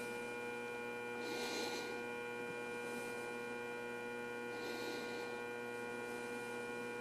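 Steady electrical hum made of several fixed tones, with faint hiss that swells softly twice.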